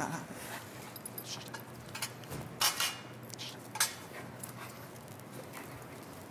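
A few light metallic clinks and knocks as a detection dog noses among small metal scent boxes, the loudest about two and a half seconds in and again near four seconds.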